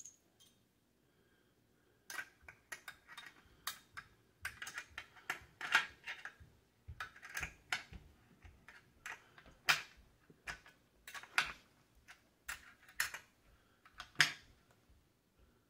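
Hand wrenches clicking and clinking on a nut and bolt as the nut is tightened onto a steel weight-bench bracket: a string of irregular light metal clicks, a few of them louder.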